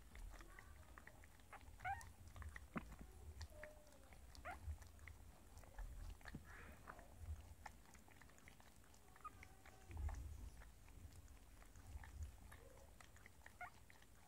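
Miniature dachshund mother licking her newborn puppy clean: faint, irregular wet clicks and smacking licks, with a few brief soft squeaks among them.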